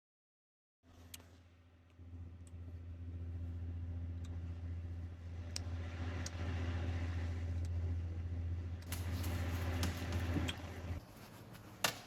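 A steady low mechanical hum, like a motor or fan running, with a few light clicks over it. The hum stops about eleven seconds in, and a sharp click follows just before the end.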